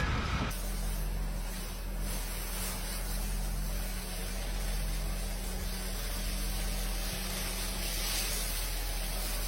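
Steady hissing noise over a low, even hum, like a machine running continuously.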